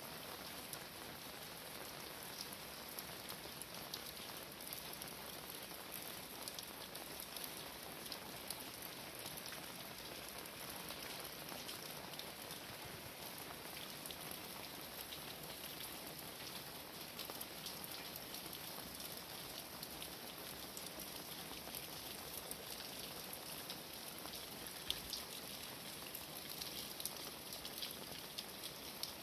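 Steady rain falling, an even hiss dotted with the ticks of many individual drops striking surfaces close by.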